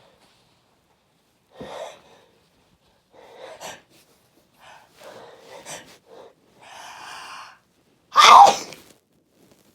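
A person gasping in several times as a sneeze builds, then one loud sneeze a little over eight seconds in.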